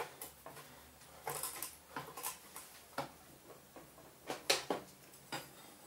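Irregular light clicks, taps and rattles of hands working the engine cover loose on a Briggs & Stratton snowblower engine, with the sharpest knock about four and a half seconds in.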